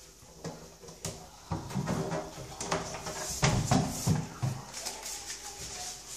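A run of clicks, knocks and scraping as the front assembly of a mechanical iris shade is pulled off its laser-cut aluminium frame, busiest and loudest in the middle.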